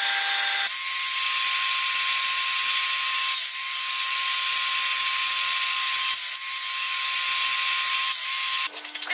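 Table saw running at speed: a steady high whine over a loud hiss. Near the end it breaks off abruptly into lighter clicks and knocks.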